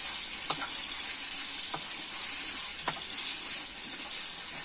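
Food frying with a steady sizzle in a metal pan, stirred with a spatula that clicks sharply against the pan a few times.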